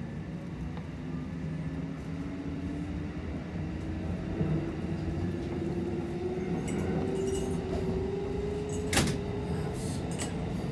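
Kintetsu 2050 series electric train with Mitsubishi field-chopper control, accelerating away from a station: the traction motor whine rises steadily in pitch over the rumble of the wheels on the rails, heard inside the front car. A sharp clack comes about nine seconds in.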